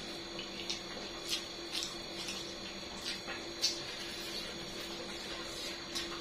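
Close-miked chewing and mouth sounds: short wet clicks and crunches, roughly twice a second, over a steady faint hum.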